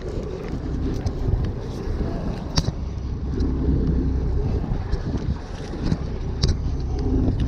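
Steady low rumble of a fishing boat's engine running, mixed with wind on the microphone. Two short sharp clicks come about two and a half and six and a half seconds in.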